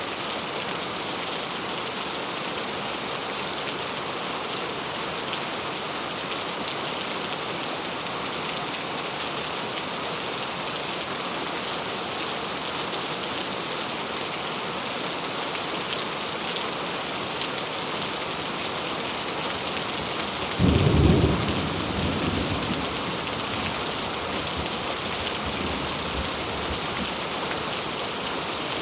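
Steady heavy rainfall hissing, with a sudden thunderclap about two-thirds of the way through that rumbles away over a couple of seconds.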